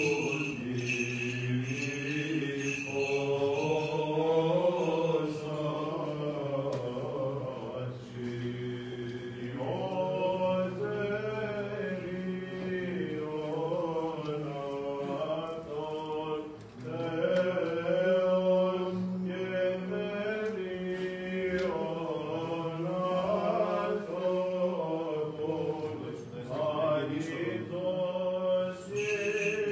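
Byzantine chant by male voices: a melodic line winding up and down over a steady held low drone (the ison), with a short break about two-thirds of the way through.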